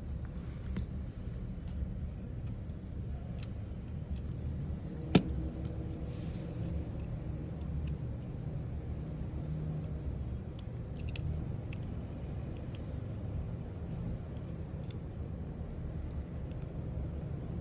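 Steady low rumble with scattered light clicks, and one sharp click about five seconds in.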